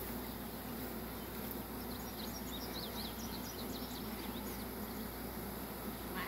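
Honeybee swarm humming steadily as it clusters on the hive. A bird chirps in short quick notes from about two to four seconds in.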